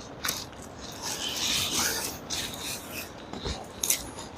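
Rope being undone and pulled by hand, a rasping, rubbing scrape that is loudest about one and a half to two seconds in, with a sharp click near the end.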